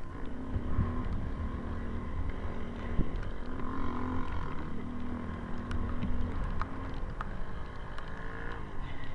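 ATV engine running, its pitch rising and falling with the throttle, with a few short clicks or knocks.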